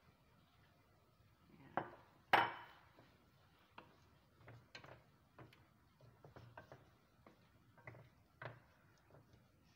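A bowl knocks twice on a nonstick frying pan about two seconds in, the second knock the loudest and ringing briefly, then a wooden spatula clicks and scrapes irregularly against the pan as sliced mushrooms and green bell pepper are stirred in.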